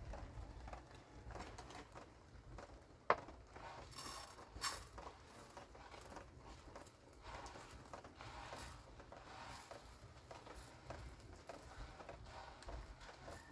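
Faint scattered clicks and light knocks over a low steady rumble, with one sharp click about three seconds in.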